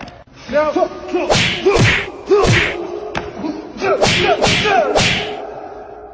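About six sharp whip-like hit-and-swish strike effects in quick succession, each a crack with a short swooping tone, over steady background music that fades near the end.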